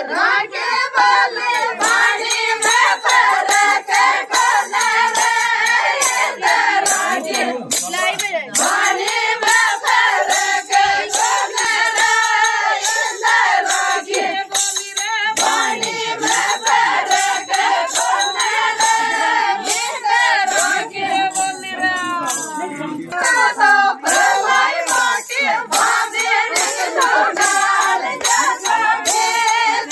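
Group of women singing a Meena ladies' folk song (ladies geet) together, with a steady beat of sharp strikes under the voices.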